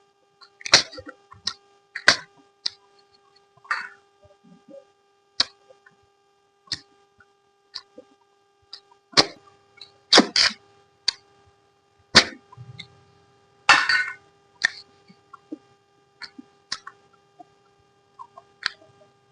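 Close-miked eating: irregular sharp mouth clicks, smacks and chewing sounds, with a longer slurp about fourteen seconds in, over a faint steady hum.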